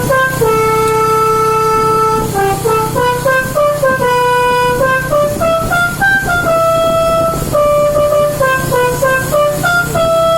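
Bus telolet horn, a multi-tone air horn, playing a melody of stepped notes, some short and some held for about a second, with a steady low rumble underneath.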